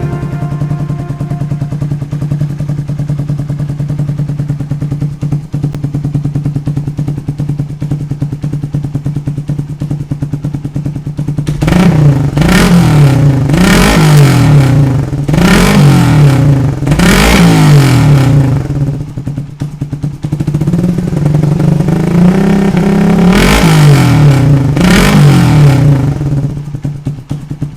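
Suzuki Satria FU 150 fuel-injected single-cylinder engine breathing through a Ronin aftermarket exhaust fitted with a small silencer insert. It idles steadily for about eleven seconds, then is blipped repeatedly in quick revs that rise and fall. Near the end comes a longer, held rev before it drops back toward idle.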